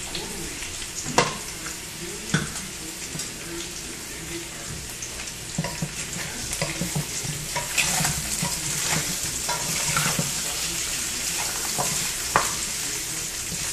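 Pork ribs and backbone sizzling in a large pot as they are stirred with a wooden spoon, with a few sharp knocks, the loudest about a second in and near the end.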